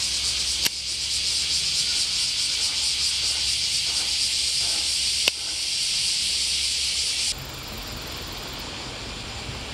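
Cicadas singing in a steady high-pitched chorus, with two sharp clicks, one about a second in and one about five seconds in. The chorus drops to a quieter level about seven seconds in.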